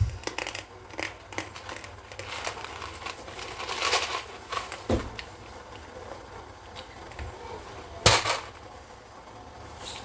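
Kitchen handling noises while cooking macaroni: scattered knocks, clicks and crinkling, with one sharp knock about eight seconds in.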